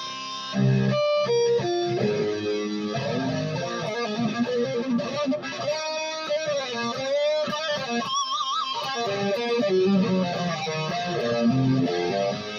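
Japanese-made Jackson reverse-headstock electric guitar played in single-note melodic lines. In the middle the notes bend and waver in pitch.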